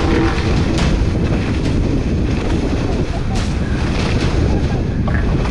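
Hobie 16 catamaran hull driving through chop at speed: water rushing and spraying past, with heavy wind rumble on the microphone and occasional sharp splashes.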